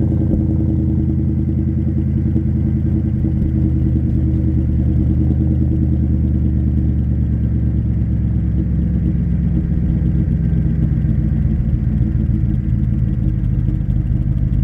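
Audi S5's 4.2-litre V8 idling steadily at the twin tailpipes, a loud, deep, even burble while it warms up after a cold start.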